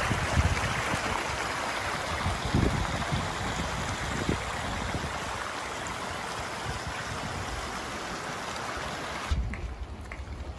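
Shallow mountain stream rushing steadily over rocks and a small cascade. About nine seconds in it cuts off, and wind rumbles on the microphone.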